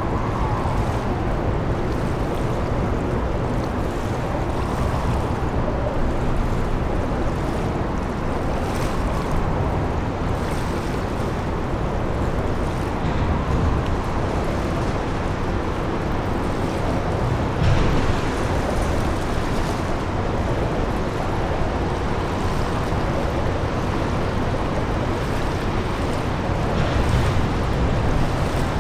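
Steady rushing of water and wind with a low rumble as a large river cruise motor ship passes close by, with one brief louder burst about two-thirds of the way through.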